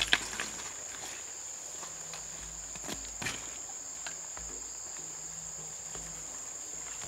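Insects trilling in one steady high tone, with a few sharp knocks at the very start and about three seconds in.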